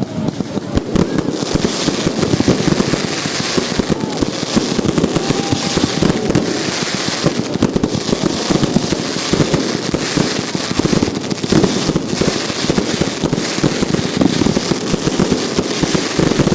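Fireworks going off in a dense, continuous crackle of rapid pops.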